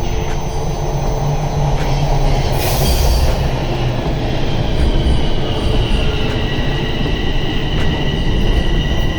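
Toronto TTC subway train running on the rails with a steady heavy rumble and high, thin wheel squeal that grows stronger from about four seconds in. There is a short hiss about three seconds in.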